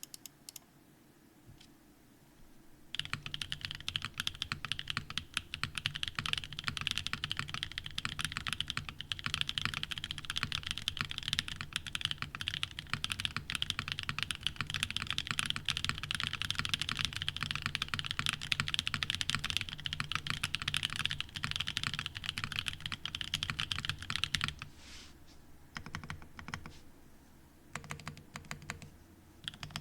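Typing on a Vertex Arc60 mechanical keyboard with an aluminium plate, case foam, Anubis tactile switches and GMK Wasabi keycaps. A few single keystrokes at first, then steady fast typing from about three seconds in, thinning to scattered slower keypresses near the end.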